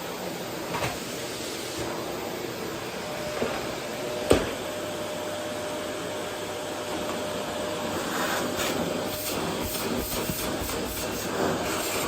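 Vacuum cleaner running steadily over a wooden floor, with one sharp knock about four seconds in and a run of short clicks and rattles in the last few seconds.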